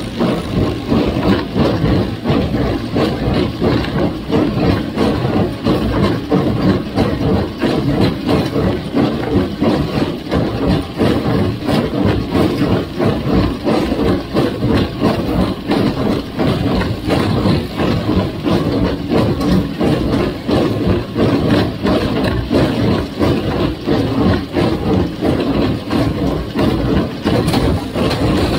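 1958 Farmall 350's gasoline four-cylinder engine running steadily, with a fast, uneven pulsing in its loudness.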